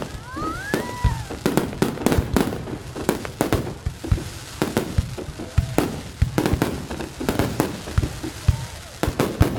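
Fireworks going off: a rapid, irregular series of sharp bangs and crackling reports, with a short rising whistle near the start.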